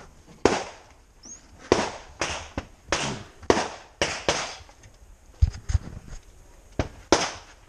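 Pistol gunfire from neighbouring bays of the range: about nine sharp shots at irregular spacing, each with a short echo, and two dull thumps a little past the middle.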